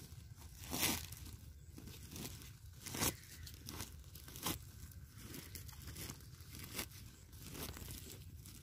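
Rustling and crinkling of a nylon mesh net bag being handled, with four sharp crackles, the loudest about a second in and about three seconds in.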